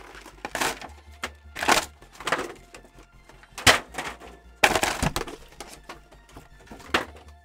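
Cardboard collection box of Pokémon cards being opened and its contents handled: a string of short tearing and rustling noises, with a sharp crack about three and a half seconds in and a heavier knock about five seconds in.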